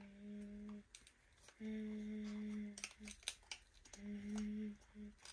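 A person humming three long, level notes on the same low pitch, each about a second, with short blips between them and light clicks and taps.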